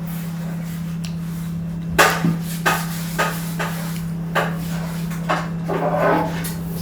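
Scattered light knocks and clatters of tableware being handled on a table, over a steady low hum.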